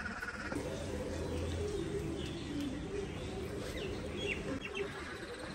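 A few quick bird chirps about four seconds in, over a steady wash of water running into the freshly cleaned duck pool as it refills.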